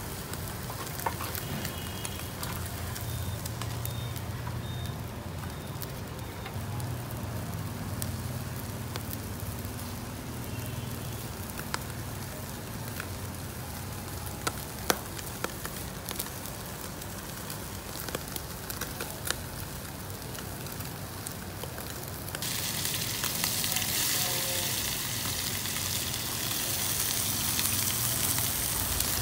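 Sturgeon pieces grilling in a wire basket over charcoal: faint sizzling with scattered sharp crackles and pops from the coals. About two-thirds of the way through, a much louder, steady sizzle sets in abruptly as sturgeon pieces fry in a small pan on the coals.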